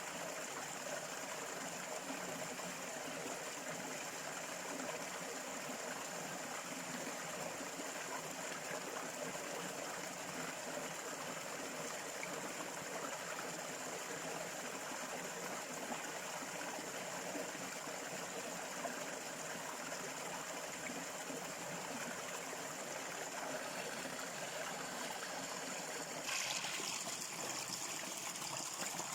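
A small stream flowing and trickling over stones, a steady rushing with gurgles, and a brief louder splash near the end.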